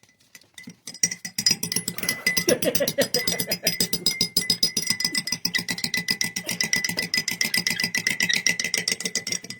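Rapid, even clicking or tapping, about ten strokes a second, starting about a second in, over a steady high-pitched tone.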